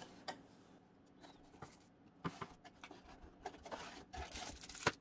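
Cardboard box packaging being handled as it is opened and its inner tray lifted: scattered soft taps and scrapes, with a longer rustle about four seconds in.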